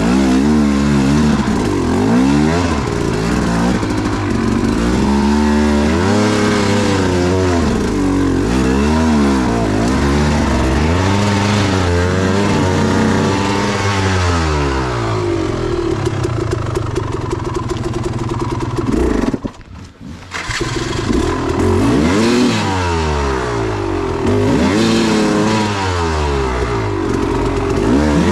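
KTM 300 two-stroke dirt bike engine revving up and down repeatedly as it is ridden along the trail. About two-thirds of the way through, the engine sound drops away for about a second, then picks back up.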